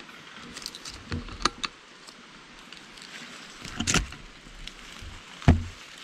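Clicks and knocks from a scoped air rifle being handled while it is aimed up into the trees, with one sharp, loud crack and thump about five and a half seconds in.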